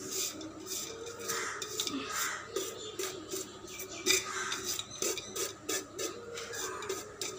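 Cooked rice being scraped out by hand from one steel pot into another, a steady scraping and rubbing with many small taps and clinks of the metal pots.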